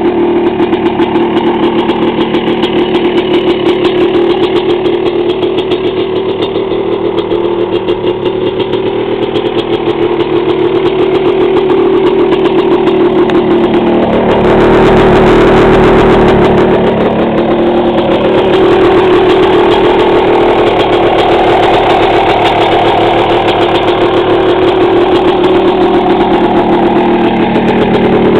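1998 Yamaha YZ250 two-stroke single-cylinder engine, with a freshly rebuilt top end (honed cylinder, new Wiseco piston), running steadily at idle. About halfway through it gets louder for a couple of seconds.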